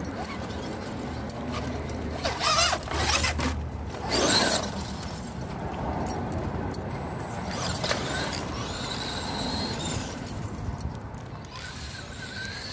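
Brushed-motor Traxxas Slash 2WD RC truck running on a 3S LiPo, its electric motor whining in repeated bursts of throttle.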